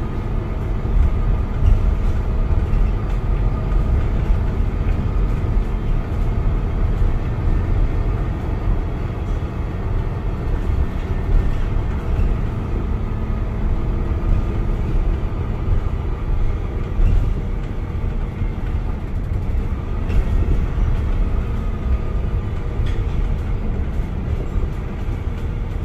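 Interior ride noise of a MAN NL323F Euro VI diesel city bus on the move: engine, drivetrain and road noise as a deep steady rumble, with a faint whine drifting in pitch above it, heard from inside the passenger saloon.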